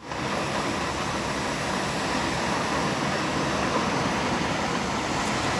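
Strong wind blowing, a steady rushing noise.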